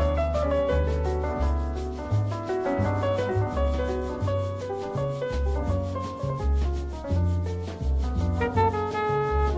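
Instrumental background music: a melody of held notes over a bass line, with a steady beat.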